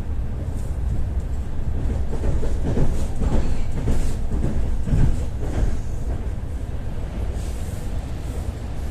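Ivolga 4.0 electric multiple-unit train running along the track with a steady low rumble. A short run of wheel knocks comes in the middle, as the wheels pass over rail joints or points.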